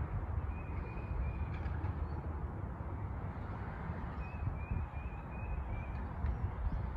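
Low, steady rumble of a garbage truck's engine. Over it, a bird calls in several short runs of three to five high notes.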